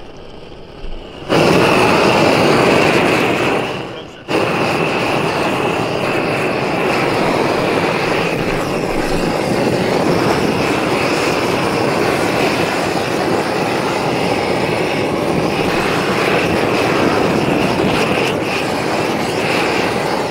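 Hose-fed propane torch burning with a loud, steady rush of flame as it heats old tar and caulking on a metal roof seam. It comes on abruptly about a second in and cuts out briefly about four seconds in.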